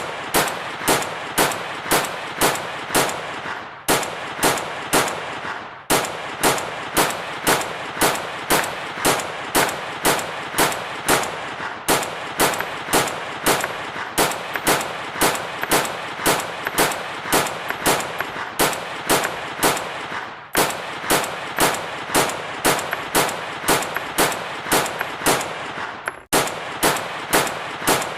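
Machine gun firing in a slow, even rhythm of about three sharp shots a second, in runs of several seconds broken by short pauses.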